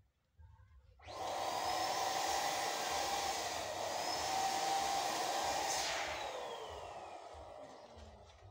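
Small electric blower motor switched on about a second in and running steadily, then switched off with a click near the middle and spinning down, its whine falling in pitch as it fades.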